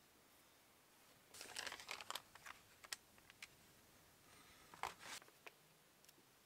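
Faint rustling and crinkling of a sheet of paper being handled and laid down, in two short bouts about a second and about five seconds in, with a few light taps between.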